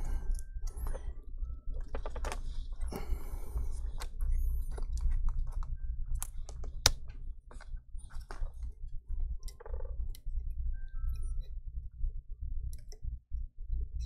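Scattered small clicks and taps as a replacement logic board and its flex cables are pressed and tucked into a MacBook Air A1466's case by fingers and a plastic spudger, over a low steady hum.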